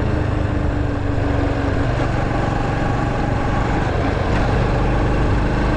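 Honda Super Cub 110's single-cylinder four-stroke engine running steadily while the bike is ridden, with wind and road noise.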